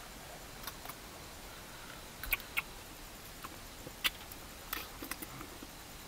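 A man chewing food with his mouth full: scattered sharp clicks and smacks over a steady low hiss, the loudest a few seconds in.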